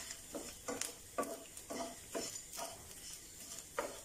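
Wooden spatula stirring and scraping grated coconut around a nonstick pan, in short repeated strokes about twice a second, over a light sizzle as the coconut roasts in coconut oil toward brown.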